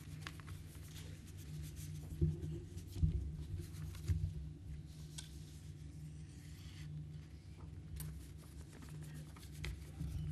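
Sheets of paper rustling and shuffling as they are handled on a lectern, with a few low thumps about two and three seconds in, over a steady low hum.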